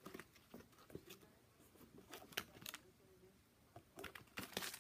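Faint crinkling and rustling of the clear plastic wrap and bag of spare laces on a new sneaker as it is handled and turned over, in a few brief crinkles, with a cluster about two seconds in and another near the end.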